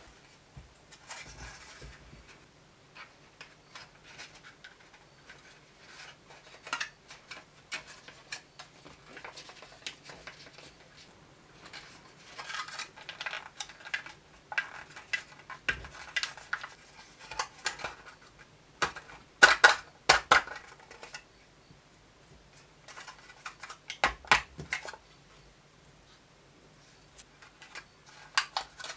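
Thin white plastic donut mold tray from a Kracie Happy Kitchen candy kit being handled: scattered clicks, taps and crinkles of the plastic as dough is pressed into it and the tray is flexed to pop the donuts out. The loudest run of clicks comes about two-thirds of the way through.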